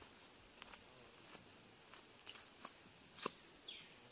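Summer insect chorus: a steady high-pitched trill, with another insect trilling in long phrases of a second or so broken by short gaps. A faint click comes about three seconds in, and a short falling call begins near the end.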